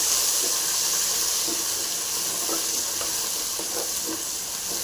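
Shallots, garlic and coriander leaves sizzling steadily in hot oil in a clay pot as a spatula stirs them, with a few light scrapes and taps of the spatula.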